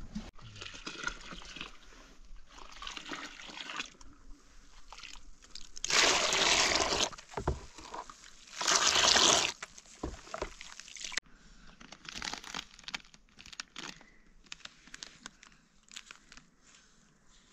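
Frothy milk being scooped and poured with a metal bowl in a large plastic tub: two splashing pours a couple of seconds apart, each about a second long, with light handling noises between. Faint crinkling of a foil snack packet near the end.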